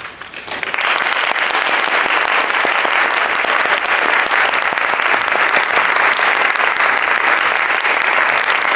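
Audience applauding: many hands clapping steadily, swelling in during the first second.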